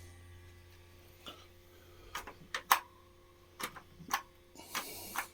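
A mid-1990s Pentium MMX desktop PC booting after power-on: irregular sharp clicks, typical of the hard drive heads seeking, over a steady low hum, with a short hiss near the end.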